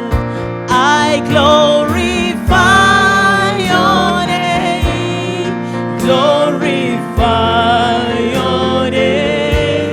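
Gospel praise and worship music: a worship band playing, with sung vocals over it.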